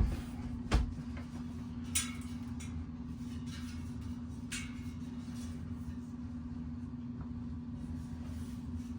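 A steady low hum runs throughout, with two sharp knocks in the first second and two short rustling scrapes, about two and four and a half seconds in, of things being handled in a workshop.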